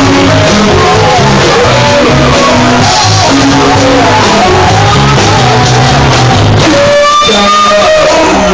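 Rock band playing live at full volume, with a voice singing over guitar, bass and drums. About seven seconds in, the bass and drums stop and a single long note is held.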